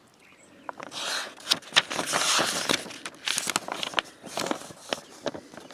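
Paper pages of an instruction manual being turned and handled: a crackling rustle of paper with many small clicks, starting about a second in and dying down near the end.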